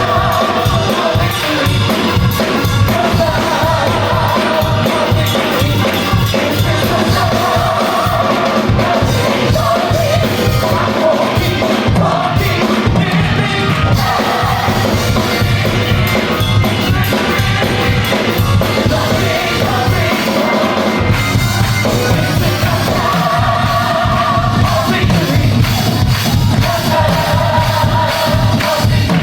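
Gospel choir singing over a band with drums and bass, in a steady beat. The bass drops out briefly about two-thirds of the way through.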